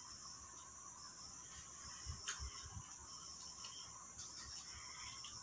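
Crickets chirping steadily in a continuous high-pitched trill, faint, with a small click about two seconds in.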